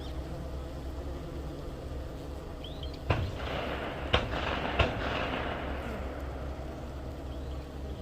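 Three gunshots from a shooting range, about three, four and nearly five seconds in, each echoing off, over a steady background hum of honeybees.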